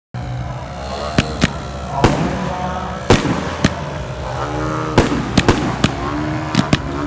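Fireworks going off: about a dozen sharp bangs at irregular intervals over a steady low hum. Pitched tones glide up and down between the bangs.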